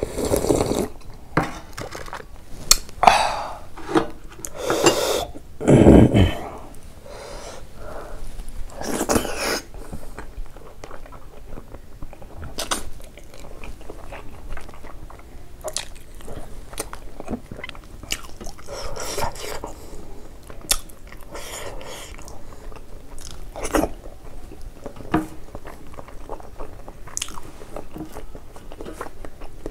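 A person eating close to the microphone: several loud slurps of pork trotter soup from a bowl in the first ten seconds or so, then quieter chewing of pork and buckwheat dhido with wet mouth clicks.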